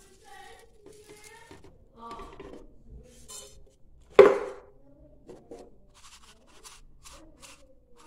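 Clear plastic bird-seed dish handled on a counter: light rattles and scrapes, then one sharp loud knock with a short ring about four seconds in as the filled dish is set down, and a run of light clicks near the end.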